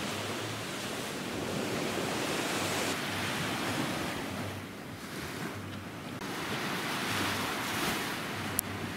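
Small sea waves breaking and washing up on a sandy beach, the surf swelling and easing, with wind buffeting the microphone. A brief click near the end.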